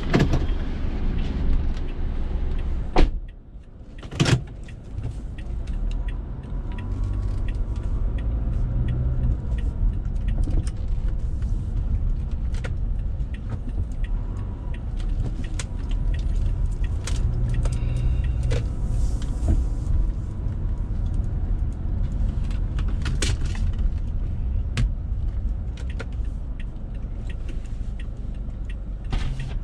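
Steady low rumble of a car driving on city streets, heard from inside the cabin. There are two sharp clicks, the first a little after three seconds in and the second about a second later.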